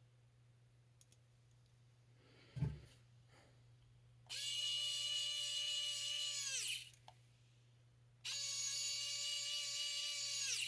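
Cordless drill-driver running in two steady spells of about two and a half seconds each, its whine falling away as the trigger is released, a sign of screws being driven back in while a chainsaw is reassembled. A single knock comes before the first run.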